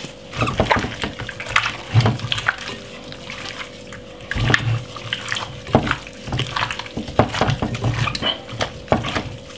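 Gloved hand rubbing crushed garlic into raw chicken pieces in a glass bowl: irregular wet squelching and slapping, with sharp clicks, over a steady low hum.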